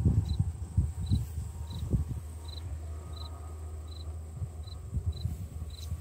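A cricket chirping steadily, short high chirps repeating about one and a half times a second, over low rumbling and thumps.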